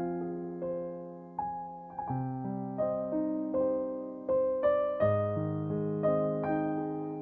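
Background music: slow, gentle piano playing single notes over held chords.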